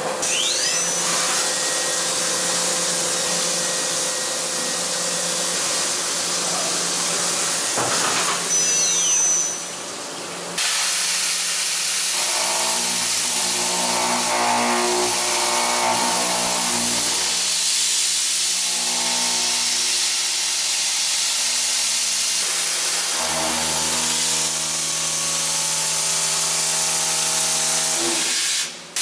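CNC vertical machining center at work. For about the first ten seconds, a tiny drill at high spindle speed cuts stainless steel with a steady bright hiss. Then comes face milling of mold steel with an indexable face mill: a steady cutting sound with a hum of several tones, which changes about 22 seconds in as a different cutter takes over.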